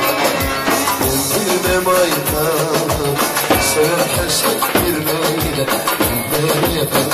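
Live Turkish folk dance music for the halay: an instrumental passage between sung lines, melody instruments over a steady drum beat.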